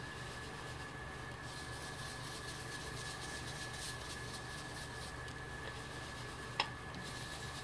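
Faint steady background hum and hiss with a thin high whine, and one light tap about six and a half seconds in.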